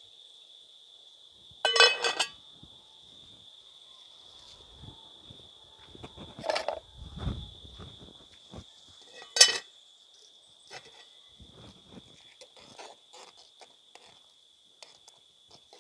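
A metal pot lid clanks against an aluminium pot: it is set on with a short rattle about two seconds in and lifted off with a sharp clink around nine seconds in. Insects keep up a steady, high-pitched drone throughout, with a few softer knocks between the clanks.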